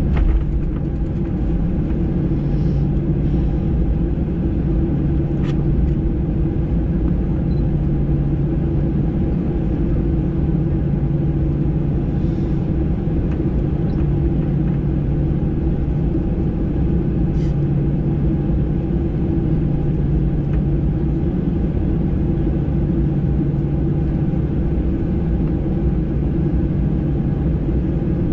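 Steady rumble and hum inside the cabin of a Boeing 737-800 with its engines running, with a few faint clicks now and then.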